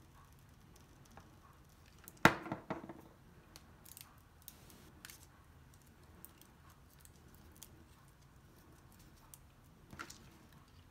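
Faint rustles and small clicks of stiff paper being handled, with a sharp knock about two seconds in and a softer one near the end as a mini hot glue gun is set down on and picked up from a countertop.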